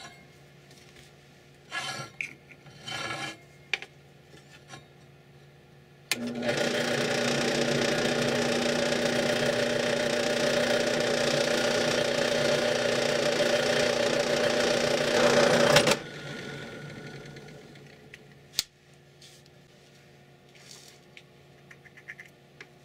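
Benchtop drill press running for about ten seconds with a steady pitch as its twist bit drills a hole into an aluminium heatsink's base, then stopping sharply and trailing off as it spins down. A few light knocks of the heatsink being handled come before it, and a single sharp click after.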